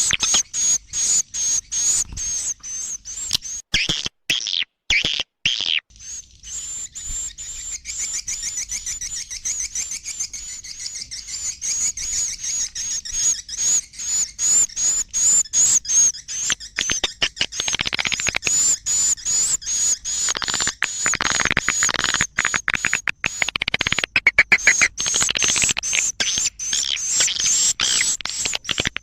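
Edible-nest swiftlets twittering: a dense, continuous stream of high, wavering chirps mixed with rapid clicks, briefly broken by a few short gaps about four to six seconds in. This is the swiftlet roosting call (suara inap), the kind of recording played to draw swiftlets in to roost.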